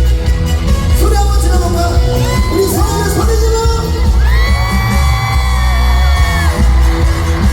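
A trot song sung live over loud amplified backing music with heavy bass. The voice bends through short phrases, then holds one long wavering note about four seconds in.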